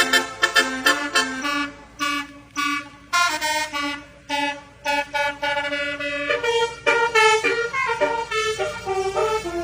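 Basuri telolet bus horn playing a tune. It starts with a run of quick short notes, then moves to longer held notes that step up and down in pitch.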